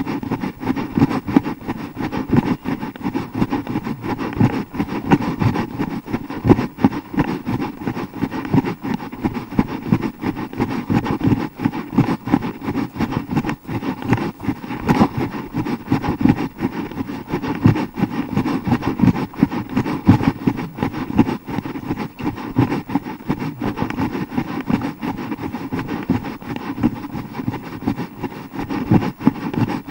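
Continuous rumbling wind and jostling noise on the microphone of an action camera carried by a running person, with constant irregular thuds and no letup.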